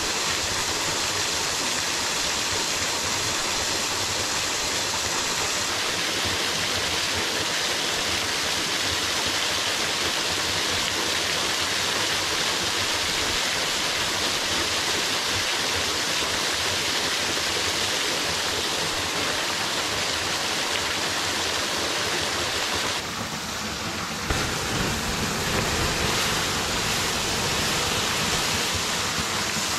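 Steady rushing of a small woodland waterfall and the brook below it. About 23 seconds in the sound dips briefly, and then a deeper low rumble joins it to the end.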